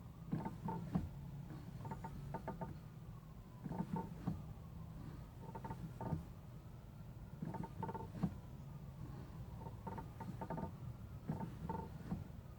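Creaking and clicking from a 2016 Mazda MX-5's clutch pedal, about seven times as the pedal is pressed and released over and over. It is the stick-slip noise where the pedal rubs against its two switches, which Mazda's service bulletin cures with silicone pads. A low steady hum runs underneath.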